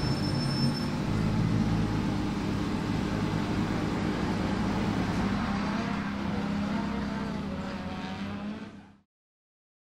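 Toyota GT86's swapped 2JZ-GTE turbocharged inline-six running steadily at idle, fading out about nine seconds in.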